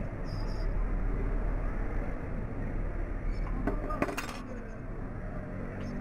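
A short run of light metallic clicks about four seconds in, as metal tweezers handle the small charging-port connector and board, over a steady background hum.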